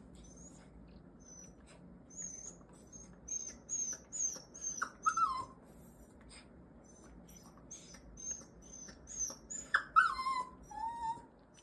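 Young mini goldendoodle whimpering in excitement over a toy. It gives a rapid run of short, very high squeaks, with a longer falling whine about halfway through and another near the end.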